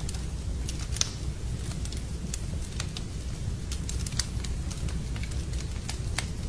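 Wood fire crackling in a fireplace: irregular sharp pops and snaps over a steady low rumble, the loudest pop about a second in.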